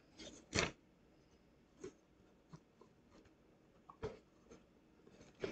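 A few light taps and clicks from a wooden frame board and tape being handled on a tabletop. The sharpest comes about half a second in, with fainter scattered ones after.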